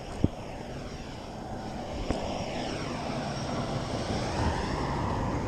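A truck passing on the road alongside, its engine and tyre noise swelling over several seconds with gliding pitch sweeps as it goes by. Two sharp clicks, one near the start and one about two seconds in.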